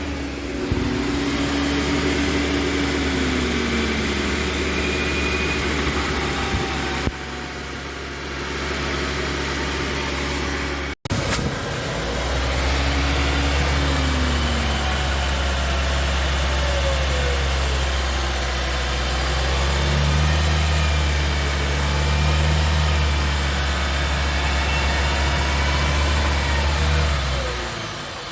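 2016 Honda Civic running with a steady low drone, most likely wheel and road noise. The sound breaks off briefly about 11 seconds in.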